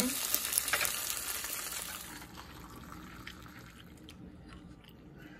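Butter sizzling and spitting under eggs frying in a nonstick frying pan. The sizzle stops about two seconds in, leaving a quiet stretch with a few faint clicks.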